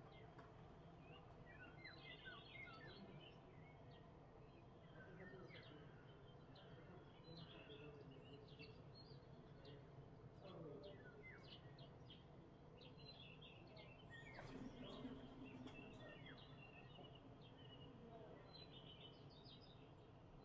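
Faint morning birdsong: several songbirds chirping and calling over one another in the trees, many short high chirps throughout, over a steady low background rumble.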